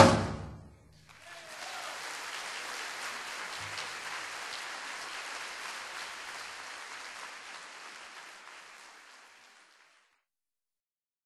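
Percussion music breaks off in the first second, then an audience applauding, fading out over about eight seconds into silence.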